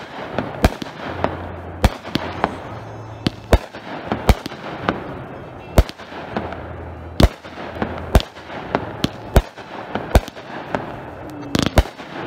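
The Angry Cowboy aerial firework cake firing shot after shot: sharp, irregular reports of launching and bursting shells, about two a second.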